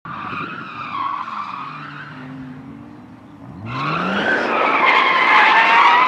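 Car tyres squealing as the car slides through a tight slalom turn, with its engine running hard underneath. About two-thirds of the way in the engine revs up, and the squeal grows loudest over the last two seconds.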